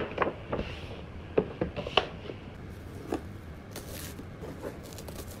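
Hands handling a cardboard gift box, with a series of light knocks and taps as it is moved and set down. About four seconds in there is a brief rustling swish as the satin ribbon is pulled loose.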